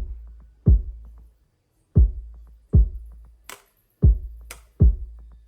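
Background music: a sparse electronic beat of deep kick-drum hits with long bass tails, and a sharp clap-like hit twice in the second half, with no singing.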